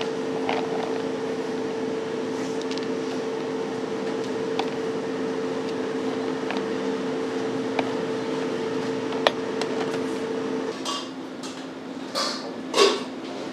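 Steady machine hum, like a fan or motor, with a few small sharp clicks and knocks. The hum stops about eleven seconds in, and a few louder scraping clatters follow near the end.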